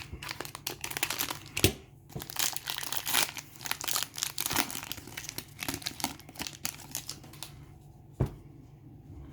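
Plastic wrapper of a trading-card pack crinkling and tearing as it is opened, a dense run of crackles that dies away after about seven seconds, followed by a single soft knock near the end.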